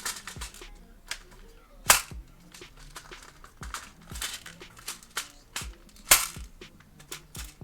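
G36C airsoft electric replica firing single shots: three sharp clacks, about two and then four seconds apart, the last the loudest, with fainter clicks of handling between them. The BBs are not feeding, so the gun is cycling without firing a BB, as the owner complains.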